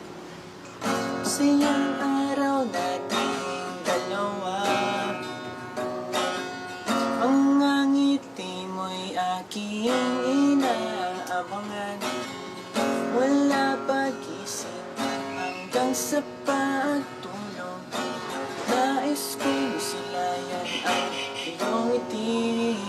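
Acoustic guitar playing a song intro: strummed chords with a gliding melody line over them, starting about a second in.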